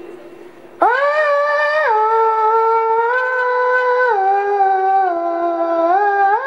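A boy's high voice chanting an unaccompanied majlis mourning recitation into a microphone. After a short quieter moment it comes in about a second in and holds long notes, stepping up and down in pitch every second or two.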